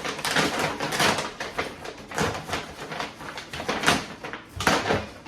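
Grocery packaging being handled and moved about: a run of irregular rustles and knocks, several of them loud.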